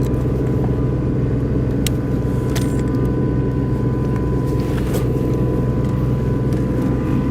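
Steady engine hum of a running machine, with a constant low drone and a faint high tone and a few light clicks; no welding arc is struck yet.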